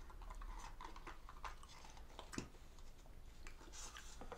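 Soft clicks and crinkles of a clear plastic dessert container being handled, with faint chewing. There is a sharper click about halfway through and another near the end.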